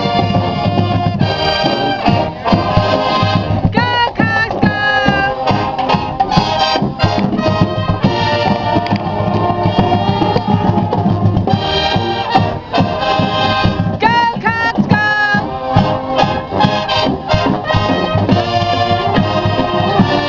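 Marching band playing: brass section over drums, with a sliding brass phrase that comes about 4 seconds in and again about 14 seconds in.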